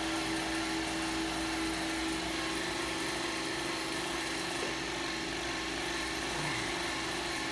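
Short-path wiped-film distillation unit running: a steady mechanical hum with a constant tone, even in level throughout.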